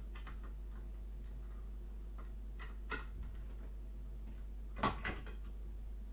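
Small clicks and knocks from power-supply parts being handled and pushed into place, with the loudest knock about five seconds in. A steady low hum runs underneath.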